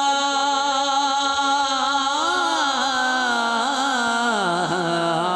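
A man singing a naat into a microphone, drawing one long held note out with wavering ornaments; about four seconds in his voice falls lower, then climbs back near the end.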